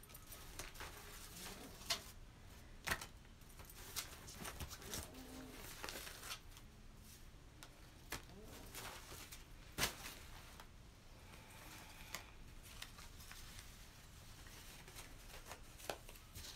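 Handmade paper cards being dealt, dropped onto one another and gathered up off a velvet cloth: scattered light taps and clicks of card on card about a second apart, with a louder snap about ten seconds in, over a soft rustle of paper.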